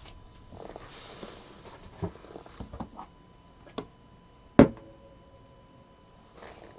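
Trading-card packs and cards being handled on a table: rustling at first, then several light taps and clicks, and one sharp knock a little past halfway with a short ring after it.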